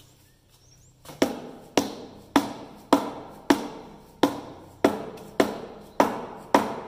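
About ten evenly spaced mallet blows, roughly two a second, starting about a second in, with an orange mallet striking the cast-iron housing of a stripped John Deere 2010 tractor. Each blow rings briefly in the metal.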